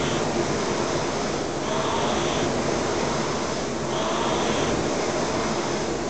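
Concept2 rowing machine's air-resistance flywheel whooshing in a steady rhythm, surging with each rowing stroke about every two seconds.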